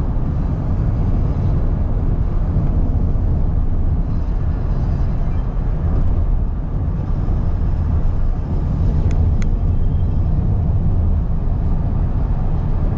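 Steady low rumble of road and engine noise inside a car cabin at highway speed, with two faint clicks about nine seconds in.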